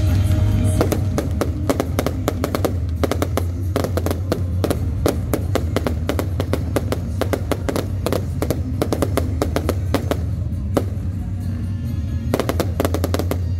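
Fireworks bursting overhead: rapid crackling and popping reports, many in quick succession, thinning out about eleven seconds in before a few more cracks near the end. Music with a heavy steady bass plays underneath.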